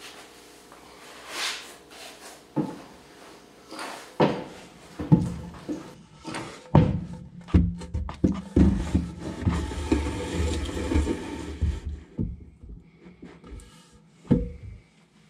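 Wooden blocks knocking and thumping against one another and on a wheeled furniture dolly as they are set under the car for the battery pack, with several seconds of rolling and scraping rumble in the middle.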